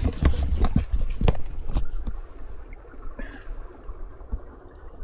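Spring water flowing out of the ground in a steady rush. In the first two seconds, low rumbling buffets and a few knocks sound on the microphone.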